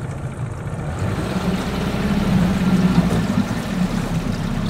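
A small boat's motor running steadily as the jon boat moves along, a low hum that grows a little louder in the middle, with water noise under it.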